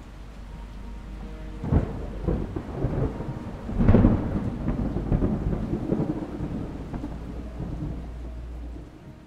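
Thunder: a sharp crack a little under two seconds in, then a louder rolling rumble peaking about four seconds in that dies away near the end, over steady rain.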